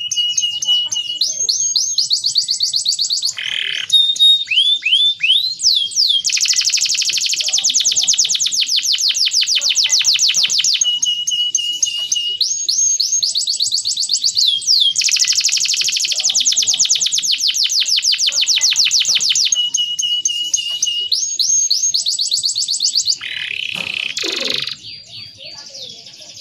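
Male canary singing a long, continuous song: very fast trills of repeated notes alternating with short held whistles and a few falling notes, the tour changing every couple of seconds.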